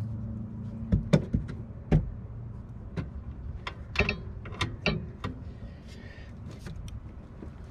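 Irregular metallic clicks and clinks of a socket wrench and socket working on the rear brake caliper bracket bolts, a few of them ringing briefly. A low hum sits under the first second or so.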